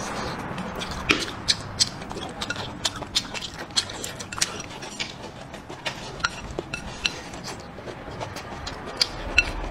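Close-miked chewing and mouth sounds, with frequent short sharp clicks, along with chopsticks clinking against a ceramic bowl as food is picked up.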